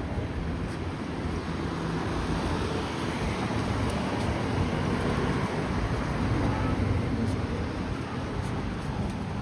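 Steady outdoor city ambience: a continuous low rumble of road traffic with no single event standing out.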